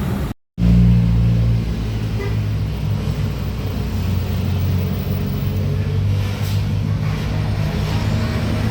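Diesel engine of a tour bus running with a steady low drone. It starts abruptly after a brief dropout just after the start and is loudest for about a second.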